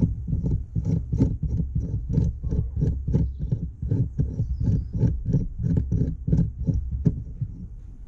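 Rapid, even clicking, about three clicks a second, as a bicycle freehub is twisted by hand to unscrew it; the clicks stop about seven seconds in. A steady low rumble runs underneath.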